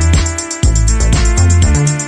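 Background music with a heavy bass line and a steady electronic beat.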